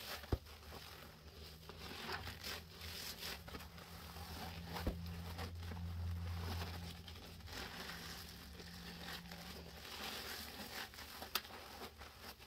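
Sponges soaked in a creamy dish soap and baking soda paste squeezed and pressed by gloved hands, giving repeated wet squishing of foam. A few sharp clicks stand out, and a faint low hum runs underneath for most of it.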